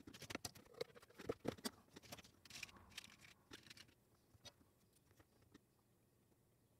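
Faint, quick clicks and taps from hand tools and small 3D-printed plastic parts being handled on a workbench, thickest in the first few seconds and thinning out after.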